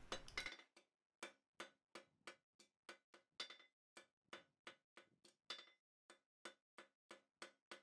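Hand hammer striking a red-hot half-inch round bar on the anvil, drawing an octagon taper behind a forged ball. The blows come faint and even, about three a second, each a short knock with a brief ring.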